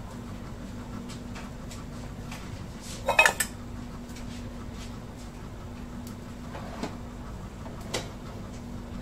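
Metal cookware clanking: a loud ringing clatter of pot against pot or lid about three seconds in, then two lighter knocks near the end, over a steady low hum.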